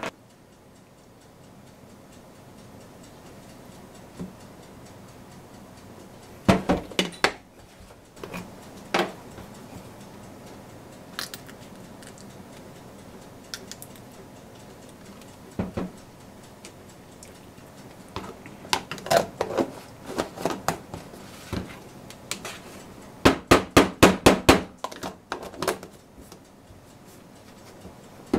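Kitchen handling sounds: scattered clicks and knocks of containers and utensils being set down and moved, with a quick run of about ten clicks near the end as plastic food jars are closed.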